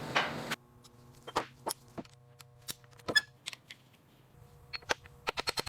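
A short hiss, then scattered small clicks and taps of hand tools and engine parts being handled. The loudest tap comes about three seconds in, and a quick run of clicks comes near the end.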